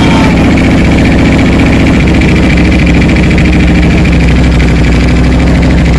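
Ducati motorcycle engine idling loudly and evenly through its exhaust, with no revving.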